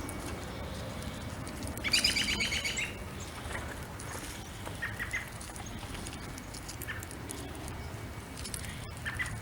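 A small songbird gives a rapid chattering call lasting about a second, about two seconds in, followed by a few short, faint chirps, over a steady background hiss.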